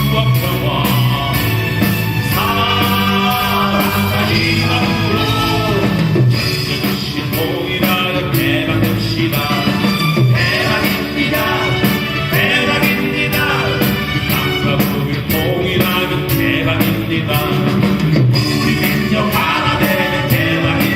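Live pop-rock band playing a song with a lead vocal over a steady drum beat, with guitar and keyboard.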